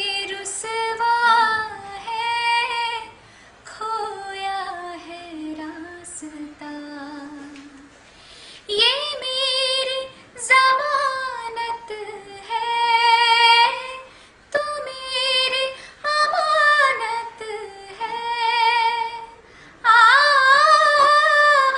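A woman singing solo in phrases of a few seconds, holding long notes and sliding between pitches with wavering ornaments, with short breaks between phrases.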